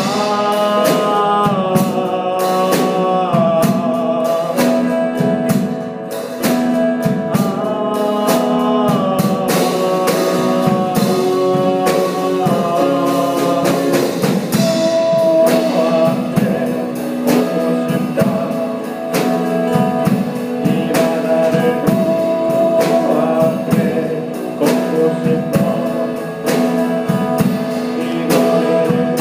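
Band music: a song with guitar, drum kit and a singing voice carrying a melody without clear words.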